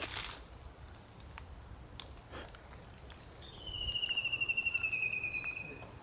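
A songbird giving a rapid, even trill that falls slightly in pitch, lasting about two seconds from just past the middle, with a few higher notes over it and a few faint clicks earlier.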